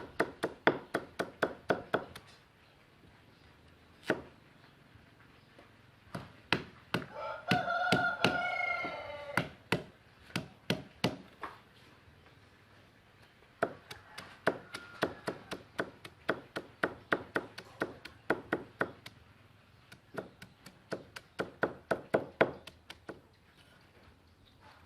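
Purple shallots being smashed and chopped: quick runs of sharp knocks, several a second, in three bursts with short pauses between.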